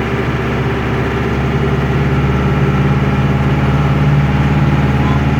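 Air-cooled Deutz F4L912 four-cylinder diesel of an Otokar M-2000 minibus running steadily, heard from inside the cabin; it gets a little louder about two seconds in.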